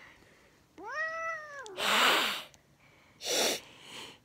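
A cat meows once about a second in, a call of about a second that rises and then falls in pitch. It is followed by two louder, short hisses and a fainter one near the end.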